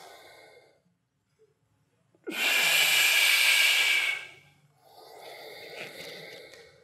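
A man's forceful breath out through the mouth, a loud hiss lasting about two seconds starting a couple of seconds in, followed by a softer breath near the end: controlled breathing timed to a push-up, with the exhale on the push up.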